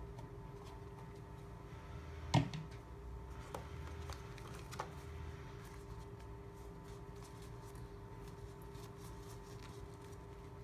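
Hands handling unboxing gear: a sharp knock about two seconds in as a small plastic wireless transmitter is set down on a wooden desk, a few lighter clicks after it, then faint rustling as a soft drawstring pouch is handled. A steady low electrical hum sits underneath.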